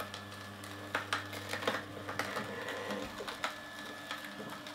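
Solo Star 4 horizontal slow juicer running with a low, steady motor hum while carrot pieces are pushed into its auger with a plunger. Irregular cracks and clicks come from the carrot being crushed.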